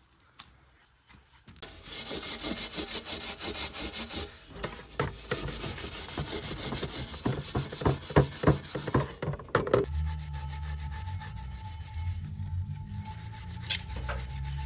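Copper dish being scrubbed by hand in fast, even rubbing strokes, about four a second, starting about two seconds in. A low hum joins about two-thirds of the way through.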